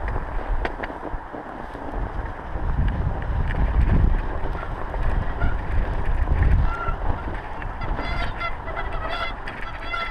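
Wind buffeting the microphone and the rumble of a mountain bike descending a snowy slope, loudest about four and six and a half seconds in. In the last few seconds come a run of short, high-pitched squeals.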